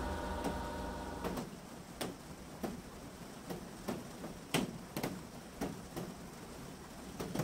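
Faint, irregular light clicks and taps of small wooden model-ship parts being handled and fitted together. A lingering tone fades away in the first second and a half.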